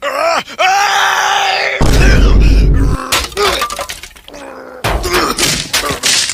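A man's drawn-out, wavering voice building up to a sneeze, cut off about two seconds in by the Vine Boom meme sound effect, a loud deep boom that stands in for the sneeze.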